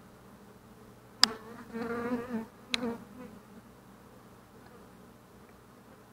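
A honey bee buzzing close by for about a second, its pitch wavering, set between two sharp taps; a brief second buzz follows the second tap.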